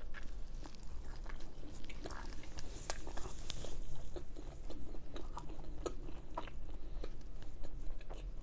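A person biting into a piece of naan topped with paneer tikka masala, then chewing it with irregular small wet clicks and smacks of the mouth.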